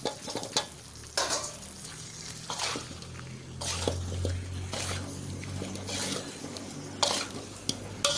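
A utensil stirring and scraping chicken and potato chunks through massaman curry paste in a pot, with irregular knocks and scrapes against the pot and a light sizzle.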